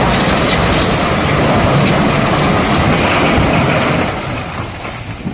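Tata Prima tipper truck dumping a load of quarry rock: rocks rumbling and clattering out of the raised steel body into a hopper chute, over the truck's running engine. The rumble eases about four seconds in as the load runs out.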